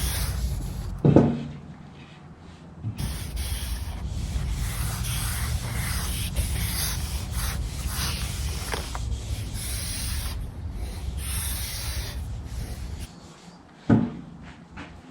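Steady rubbing strokes by hand on an oak panel, scratchy and continuous, starting about three seconds in and stopping shortly before the end. A short knock about a second in and another near the end.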